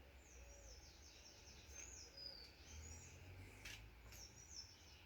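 Faint birds chirping: clusters of high, quick downward-sweeping calls over a faint low background rumble.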